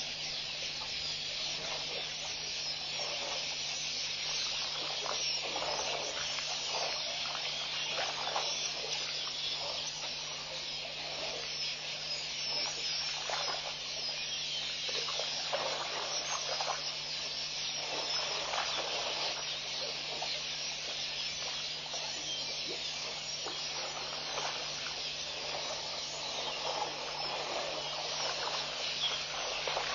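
African elephants wading and bathing in a waterhole: irregular splashes and sloshing of water, over a steady high hiss and a faint low hum.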